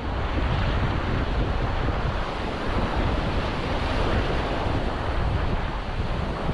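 Surf washing onto a beach, mixed with wind rumbling on the microphone.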